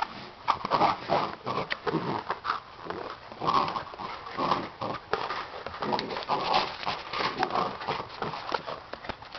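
A Basset hound making short, repeated vocal sounds, mixed with scattered clicks and knocks.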